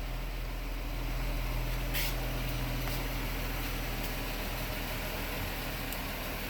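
2000 Nissan Maxima's 3.0-litre V6 idling steadily just after a start, with a brief click about two seconds in. The car is hard to start but runs normally once it has fired.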